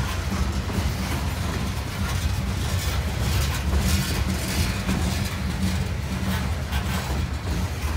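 Open-top coal hopper cars of a freight train rolling past close by: a steady low rumble of steel wheels on rail with a rattling hiss, a little louder in the middle.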